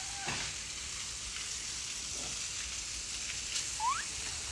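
Steady outdoor background hiss, with one short rising chirp near the end.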